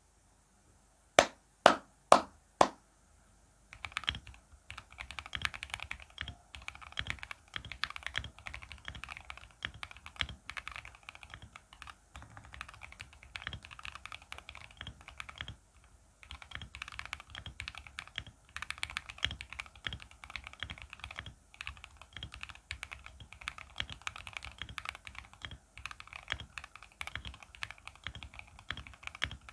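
Mechanical keyboard with lubed Jwick Black linear switches in an acrylic gasket-mount case, being typed on. About a second in come four loud single key strikes, then fast continuous typing begins near four seconds, broken only by a few short pauses. The owner says the lubed stabilizers still tick.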